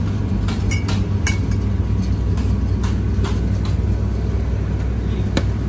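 Glass drink bottles clinking against each other and the chiller's wire shelf as a glass soda bottle is taken out, several sharp clinks over a steady low rumble.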